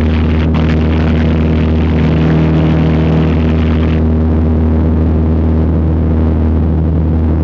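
Cessna 152's four-cylinder Lycoming O-235 engine and propeller droning steadily in cruise flight, heard from inside the cabin. The higher hiss over the drone drops away about four seconds in while the engine note stays the same.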